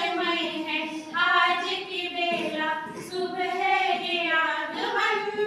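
A small group of women singing together without accompaniment, in long held notes.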